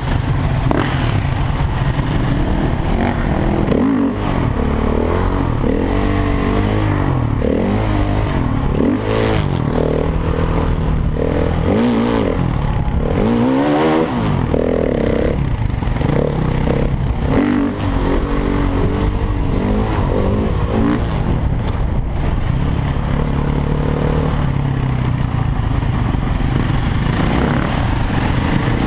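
Supermoto motorcycle engines being ridden, the revs rising and falling again and again as the throttle is opened and closed.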